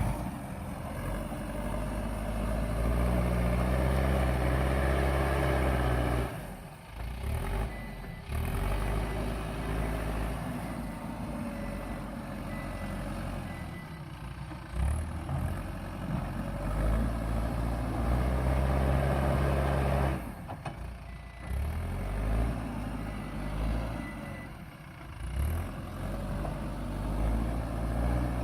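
JCB backhoe loader's diesel engine working under changing load, revving up and dropping back, with short lulls a few times. A thin high beeping tone comes and goes in the middle.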